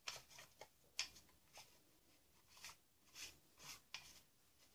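Faint scrapes and clicks of plastic plumbing fittings being handled and twisted together: a black ABS trap adapter turned onto a sink drain tailpiece. The two sharpest clicks come near the start, about a second apart.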